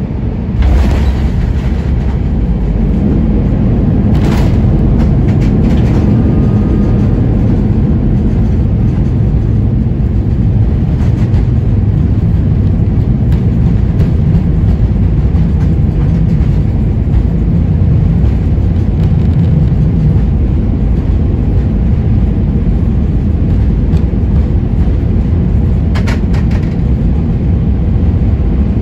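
Airbus A320-200 rolling on the runway after landing, heard from a cabin seat over the wing: a sharp knock about a second in, then a loud, steady low rumble of the engines and the wheels on the runway, with a few brief rattles.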